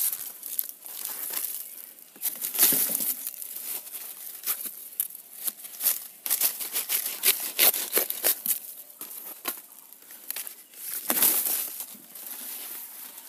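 Dry, papery banana-plant leaf sheaths being torn and pulled apart by hand: an irregular run of crackling, crinkling rips, with a few longer tears.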